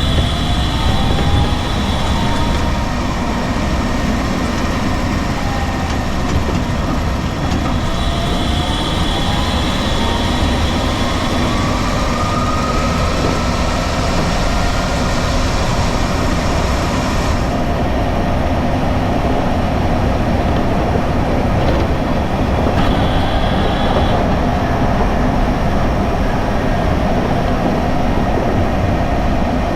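DC electric motor and drivetrain of a VW EV conversion running under way over a steady low rumble of road noise, its whine rising in pitch twice as the car accelerates. A high thin whine comes and goes several times.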